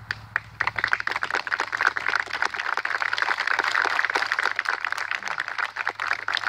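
A small crowd of guests applauding, the hand claps breaking out within the first second and keeping up steadily.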